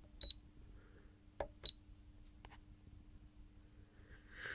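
Two short high beeps from an Agilent U1733C handheld LCR meter, about a second and a half apart, with a click just before the second, as the meter is switched from capacitance to resistance measurement. A faint steady hum lies underneath.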